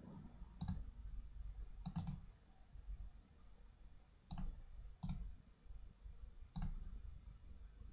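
Computer mouse clicks, about six separate clicks spaced a second or so apart, with a quick double click about two seconds in.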